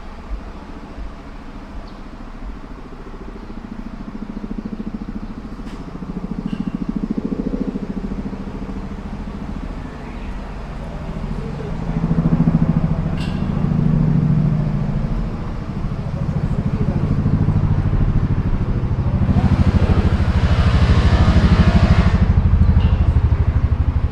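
An engine running, growing louder about halfway through, with a rushing hiss over it for a few seconds near the end.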